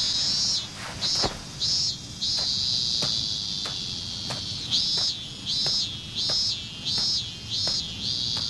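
Cicadas buzzing, a high shrill drone that runs steadily for a few seconds and then pulses on and off about one and a half times a second.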